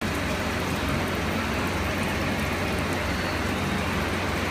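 Bench drill press running with a steady low hum as a 6 mm sintered diamond drill bit grinds through water-cooled glass, over an even hiss like running water.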